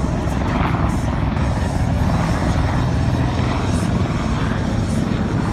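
Military helicopter flying past low over the airfield, its rotor beating rapidly and steadily.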